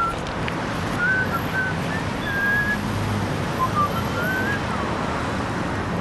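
Steady street traffic noise, with birds chirping now and then in short whistled notes.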